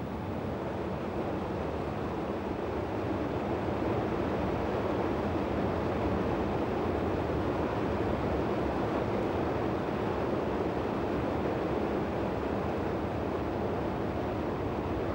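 Fast, turbulent river water rushing in a steady torrent.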